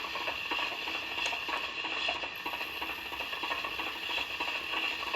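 Lionel TMCC Santa Fe crane car lowering its hook cable: a steady, fine ratcheting whir from the gear-driven winch.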